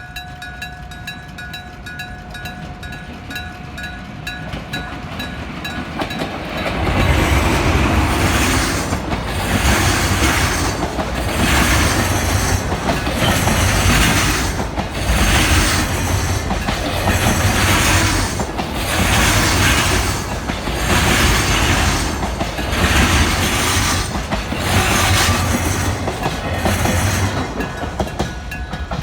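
Railroad crossing's electric striking bell ringing rapidly and steadily. About seven seconds in, a container freight train passes and drowns the bell: its wagon wheels clatter over the rail joints in a regular rhythm, one pulse every one and a half to two seconds. Near the end the train clears and the bell is heard ringing again.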